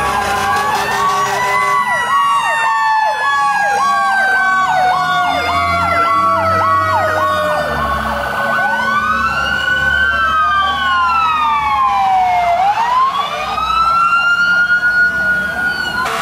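Several fire truck sirens sound at once. A fast electronic-style yelp runs through the first half over a long wail that slowly falls in pitch. In the second half, rising and falling wails take over, with truck engines rumbling underneath.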